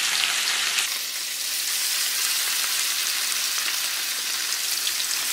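Seasoned salmon fillets frying in hot oil in a shallow pan, fresh fillets being laid in: a steady sizzle with fine crackling pops.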